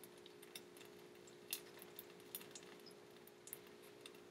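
Near silence: a faint steady hum with a few faint, scattered small clicks.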